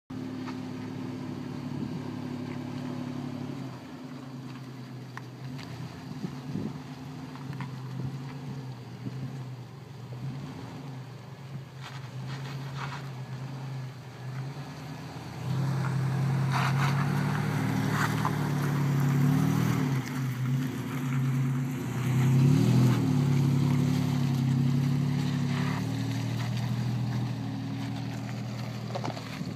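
Third-generation Toyota 4Runner's engine running at low revs as it crawls over rock, getting louder about halfway through, with two short revs as it climbs.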